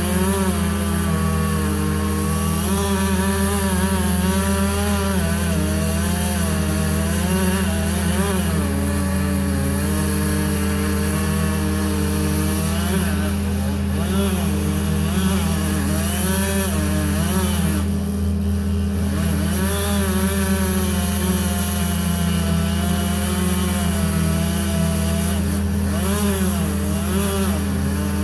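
Chainsaw cutting into a tree trunk, its engine pitch rising and falling as the bar loads and frees in the cut, over a steady low engine hum.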